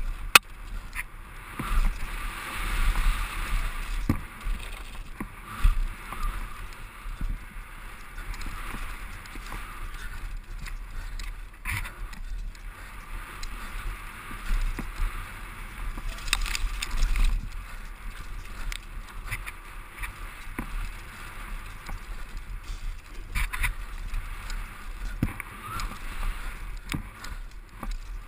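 Mountain bike ridden fast downhill, heard from a helmet-mounted camera: tyres rolling over dirt, the bike rattling, and frequent sharp knocks from bumps, over a steady rush of wind on the microphone.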